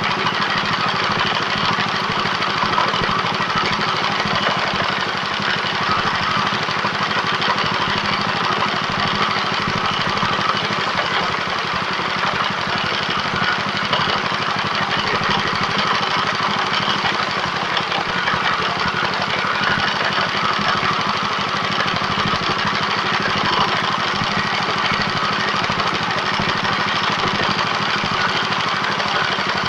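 Chicken-feed pellet machine running steadily: a continuous mechanical drone with a fast, even rattle.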